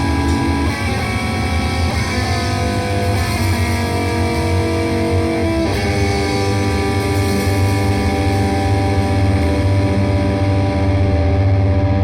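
Raw, distorted electric guitar and bass from a grindcore/noise recording, holding long sustained chords that shift pitch a few times over a heavy low drone.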